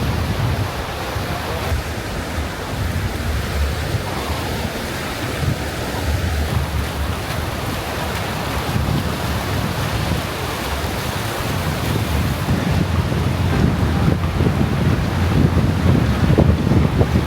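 Ocean surf washing on the beach, with strong wind buffeting the microphone in a low rumble that grows louder near the end.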